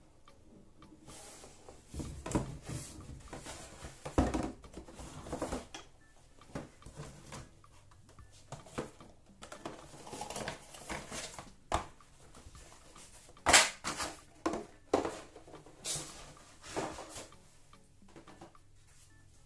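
Hands handling a folding cardboard game board and a plastic box insert tray: irregular knocks, taps and rustling scrapes, with the sharpest knock about thirteen seconds in.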